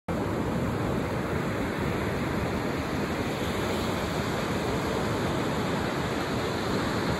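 Ocean surf breaking and washing on a beach, a steady rushing noise.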